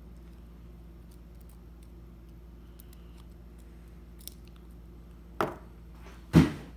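Quiet room hum with a few faint clicks, then a sharp click about five seconds in and a louder knock near the end: small tools and toy car parts being handled on a work surface.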